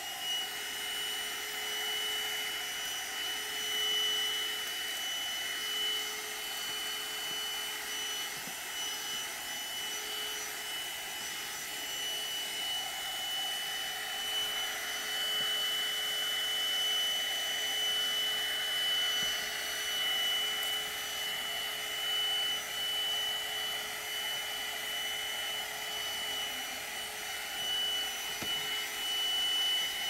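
AGARO CV1079 handheld 12-volt car vacuum cleaner running steadily with a high motor whine, vacuuming sand and dirt off a rubber car floor mat.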